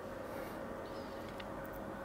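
Quiet room tone: a low steady hum with a few faint ticks.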